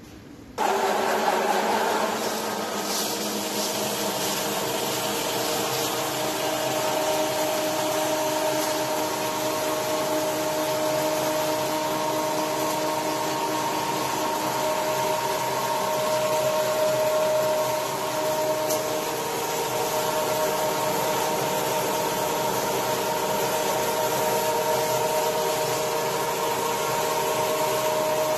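Small flat-die feed pellet mill running, setting in abruptly about half a second in: a steady motor hum with a whine and grinding noise as chopped fresh grass is pressed through the die into pellets.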